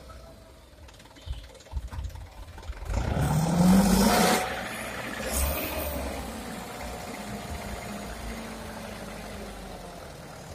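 Hino Dutro dump truck's diesel engine revving up about three seconds in to drive the tipper hoist, then running steadily at raised speed with a thin whine as the loaded bed lifts.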